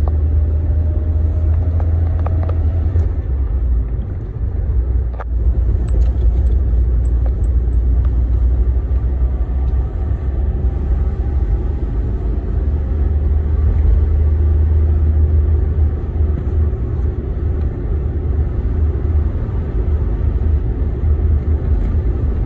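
Toyota Carina driving, heard from inside the cabin: a steady low engine and road rumble, with the engine note rising briefly near the start. A single sharp click comes about five seconds in.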